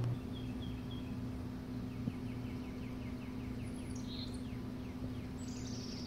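Small songbirds chirping: a fast run of about five quick falling notes a second through the middle, with a few high, thin calls later, over a steady low hum.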